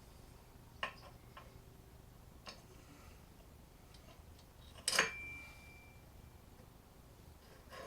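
Tools and small metal parts clicking and knocking while a chainsaw is taken apart, with a few light taps and one louder metallic clink about five seconds in that rings briefly.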